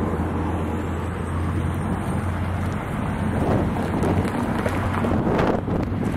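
EMD MP15AC diesel switcher locomotives running as the train approaches. A steady low engine rumble slowly grows louder.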